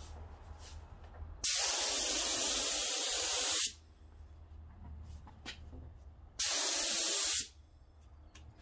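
HVLP spray gun spraying a lacquer sanding coat in two hissing bursts: a long one of about two seconds, then a short one of about a second.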